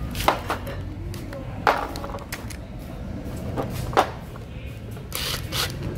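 Sharp clicks and knocks of hand tools and parts being handled while a power steering pump is taken apart, three of them standing out, over a steady low hum. Near the end comes a short scraping rasp.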